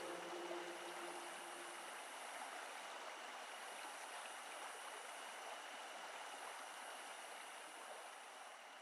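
Faint steady hiss with a few thin high tones, fading out near the end. A held low note from the closing music dies away about half a second in.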